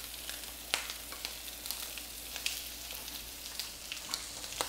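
Crab cakes and bacon frying in butter and bacon grease in a cast iron skillet: a steady sizzle with scattered sharp pops and crackles.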